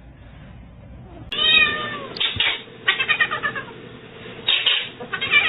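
A cat meowing repeatedly, starting about a second in: one drawn-out meow, then runs of short, choppy calls.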